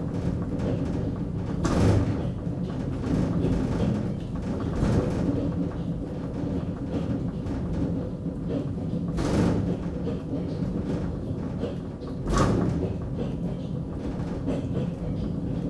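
Suspended railway car running along its elevated steel track: a steady rumble and hum of the running gear, with a heavy thump and a rush of noise four times, a few seconds apart.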